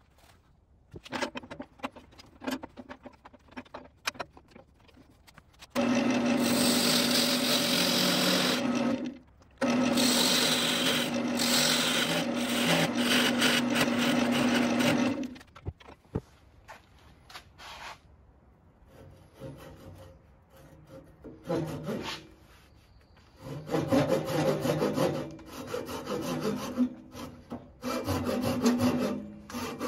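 A wood lathe spins with a steady hum while a parting tool cuts into the base of a redbud vase, stopping about halfway through. It is followed by a handsaw sawing back and forth through the remaining wood to part the vase off, the strokes getting louder near the end.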